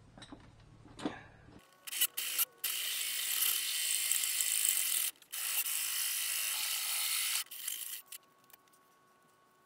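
Cordless drill driving a 63 mm hole saw through the sheet-metal firewall. It cuts in a few short bursts, then in two long stretches with a brief pause about five seconds in, then a few last short bursts as the saw breaks through near eight seconds.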